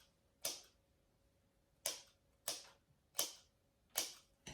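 Scissors snipping into the edge of a paper craft mane: about six short, crisp cuts, roughly two-thirds of a second apart, with a longer gap after the first.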